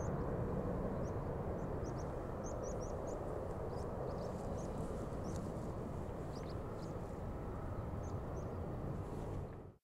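Small birds chirping, many short high chirps, over a steady low rumble; it all fades out near the end.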